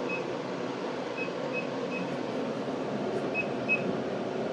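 Steady whooshing hum of the Aeon Mira 5S laser engraver's fans running, with a few faint short high beeps now and then.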